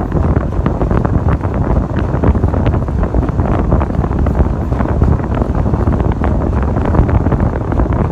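Strong wind buffeting the microphone: a loud, continuous low rumble with crackling.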